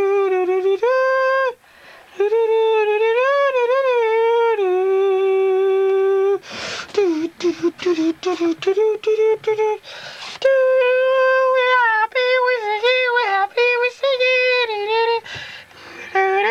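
A voice humming a slow, wordless tune in long held notes. About six seconds in, the humming breaks off for a few seconds of rustling and knocks from the camcorder being handled, then resumes.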